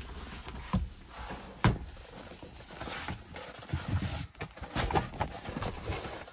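Handling noises in a van cab: two dull knocks early on, then rustling and clattering as a folded accordion windshield privacy cover is taken out and unfolded, with a sharp click in the middle.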